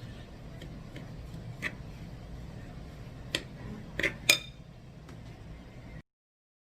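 A utensil clinking against a mixing bowl while crushed cookies and melted butter are stirred: about five sharp clinks, the loudest about four seconds in, over a low steady hum. The sound cuts off abruptly about six seconds in.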